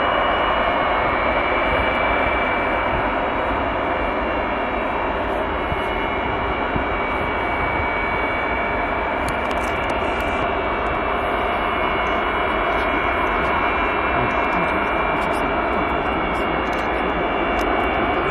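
Antonov An-225 Mriya's six D-18T turbofan engines at takeoff power, a loud steady rumble with a high whine, as the aircraft rolls down the runway and climbs away.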